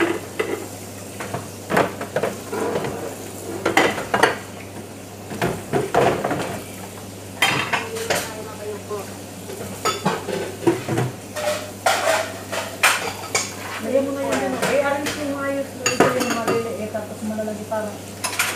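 Dishes, bowls and utensils clattering and clinking against each other and a stainless steel sink as they are washed by hand, in irregular knocks throughout.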